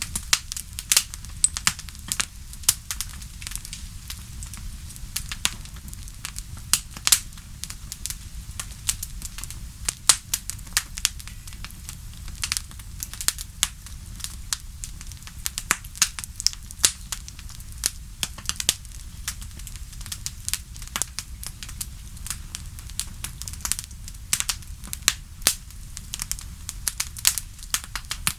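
Wood fire crackling: a steady low rumble with irregular sharp pops and snaps, several a second, some much louder than the rest.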